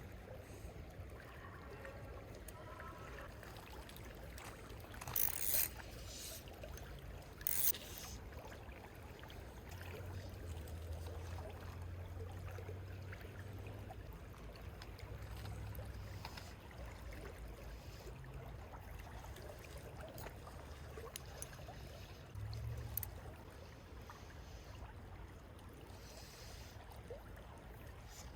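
River water running with a steady low rumble, broken by two short, louder rushing noises about five and seven and a half seconds in.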